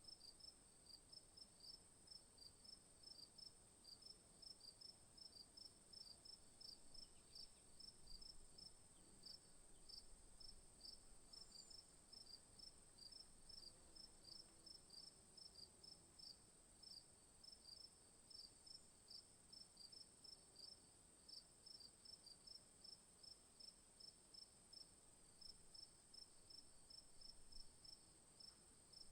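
Faint insects chirping: a regular high chirp a few times a second over a steady high-pitched drone.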